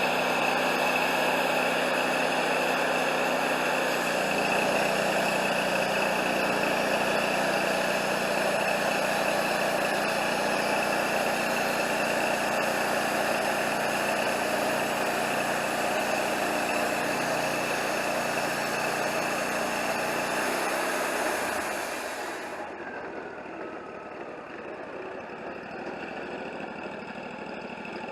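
Wood-Mizer LT40 band sawmill running under load with its blade sawing through a maple log, a steady mix of engine drone and high hiss. About 22 seconds in, the hiss cuts off and a tone glides down as the blade winds down, leaving the engine running more quietly.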